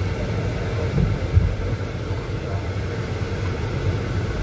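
Steady low rumble of a car driving, heard from inside the cabin, with a brief low thump about a second and a half in.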